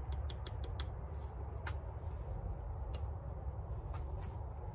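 A quick run of light clicks and taps in the first second, then one more a little later, as a powder measure is worked at the muzzle of a .45 caliber muzzleloader while a black-powder charge is poured down the barrel. A steady low rumble runs underneath.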